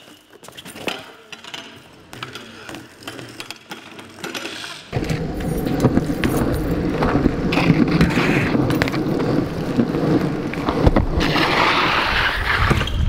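BMX bike rolling over rough pavement: after a few light taps and clicks, a loud rumble of tyres on the ground starts suddenly about five seconds in, with a harsher scraping hiss near the end.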